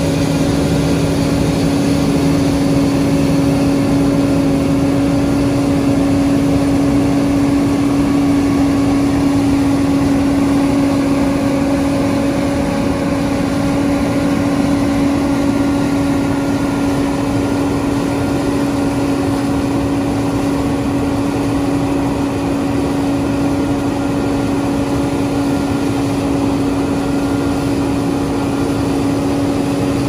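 John Deere 9500 combine harvester running steadily while cutting wheat: a constant diesel engine and machinery drone with a steady, unchanging hum.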